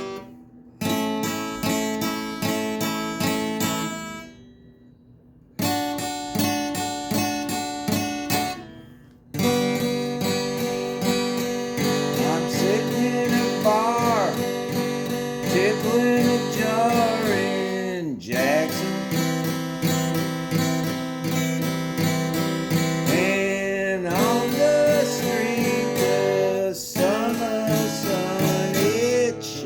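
Acoustic guitar strumming chords, stopping briefly twice in the first several seconds, then playing steadily from about ten seconds in. Over the later chords runs a melody line that slides and bends in pitch.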